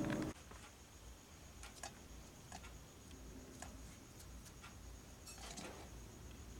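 A few faint, scattered light clicks and taps of stainless steel plates and bowls being handled while eating rice by hand.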